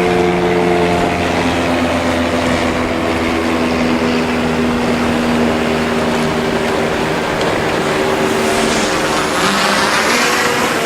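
High-powered Mercury outboard engines running hard at speed, a steady multi-toned engine note whose pitch slowly sinks, with a rush of water and wind noise rising near the end.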